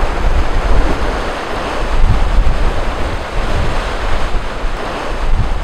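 Wind buffeting the microphone in uneven gusts over the steady wash of ocean surf.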